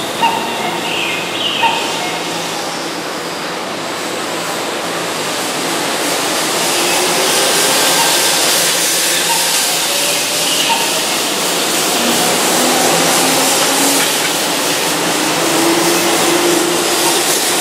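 Keihan 2600-series electric train pulling away from a platform: the traction motors whine steadily upward in pitch as it gathers speed, over the growing rumble of the wheels on the rails.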